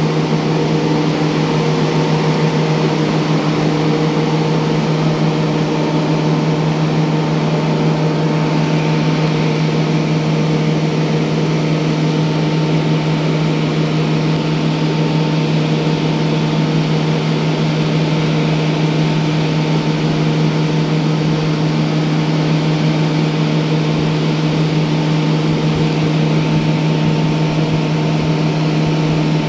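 Steady machine drone: a loud, unchanging low hum with fainter higher tones over a haze of noise.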